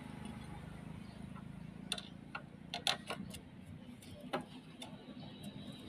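Scattered light clicks and taps over a faint low hum, with the sprayer's small engine stopped.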